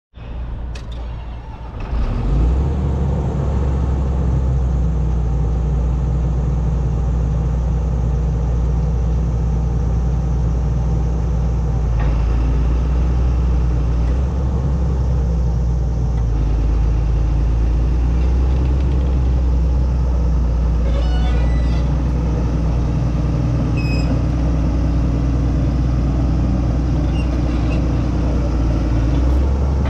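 John Deere 330C LC excavator's diesel engine running steadily at a low, even pitch. It jumps in loudness about two seconds in.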